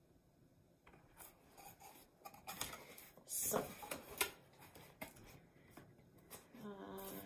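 Cardboard shipping box being handled: the flaps and the folded card insert scrape and rub against each other in irregular strokes, with two louder scrapes about three and a half and four seconds in.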